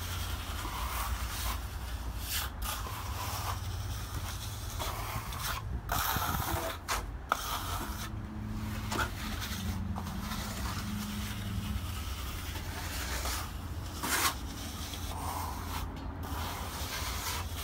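Steel plastering trowel scraping over wet stucco on a wall in repeated strokes as the mud is spread and smoothed, over a steady low rumble.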